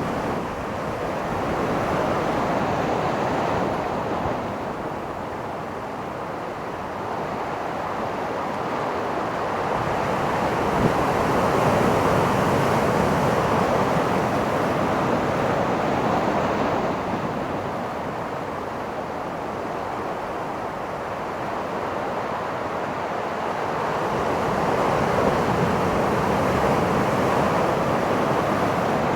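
Ocean surf washing onto the beach in slow swells, rising and easing over several seconds at a time, with some wind buffeting the microphone.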